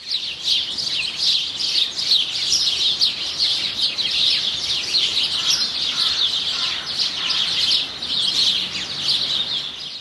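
A flock of small songbirds chirping together: a dense, continuous chatter of many quick, high chirps overlapping one another.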